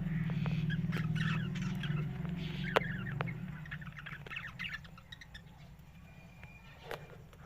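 Budgerigars chattering and warbling in quick, twittering chirps with a few sharp clicks, busiest in the first half and thinning out later. A low steady hum underneath fades about halfway through.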